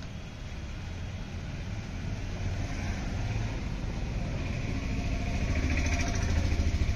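A motor vehicle engine running, its low, rapid firing pulse growing steadily louder as it draws nearer.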